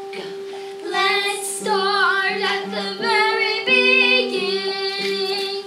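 A young girl singing a show tune solo over a recorded accompaniment that holds a steady note with shifting bass notes beneath it. The voice comes in about a second in.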